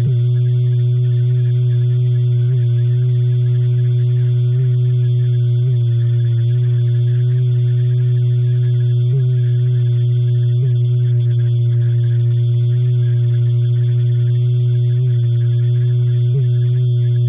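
A single kick drum crushed through 101,120 stacked FL Studio Soundgoodizer plugins, which turns it into a loud, unbroken low drone with a hissing top. Faint flickers in the pitch come and go.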